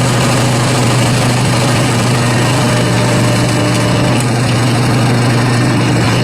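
An old Hitachi backhoe's diesel engine running at a steady, even speed, with a constant low hum and no revving.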